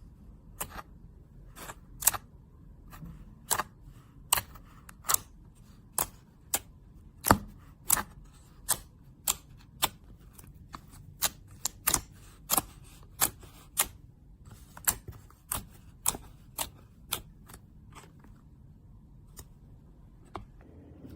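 Slime being pressed and squished, giving a long run of sharp clicks and pops at roughly one to two a second, tailing off near the end.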